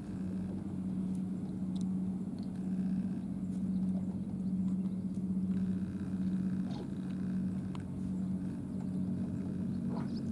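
Boat engine idling: a steady low hum with a gentle, slow swell in loudness.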